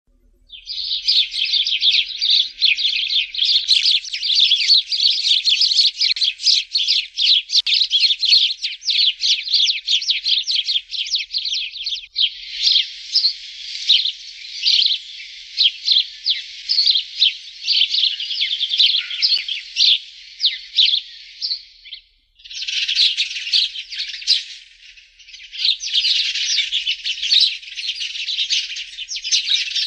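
Sparrows chirping in a dense, rapid chatter of overlapping high chirps, with an abrupt change about twelve seconds in and a brief break about twenty-two seconds in.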